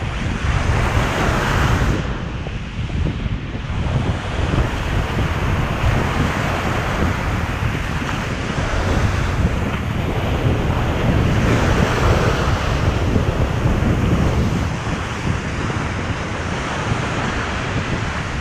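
Ocean surf washing onto the beach, with wind buffeting the microphone in a continual low rumble; waves swell up about a second in and again past the middle.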